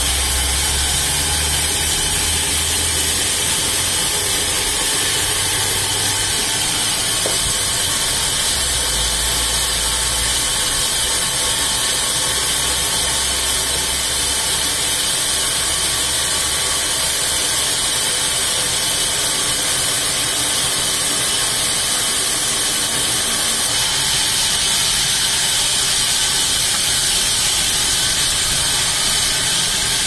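Horizontal band sawmill running, its blade cutting lengthwise through a log: a steady loud hiss over a low hum from the drive.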